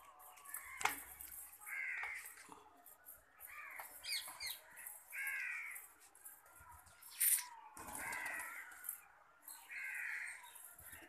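A crow cawing repeatedly: about five harsh calls, roughly two seconds apart. Two short sharp clicks cut in, the louder one about seven seconds in.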